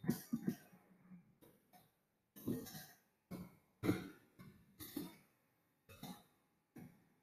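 A man's voice in quiet, short, breathy bursts, about nine of them, muttered under his breath with gaps between.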